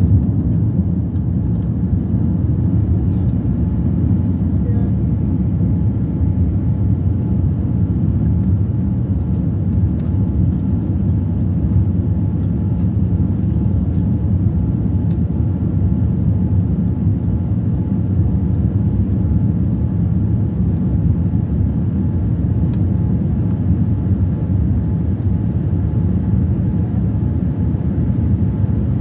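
Jet airliner cabin noise while climbing after takeoff: a steady low rumble of the engines and rushing air, heard from inside the cabin at a window seat.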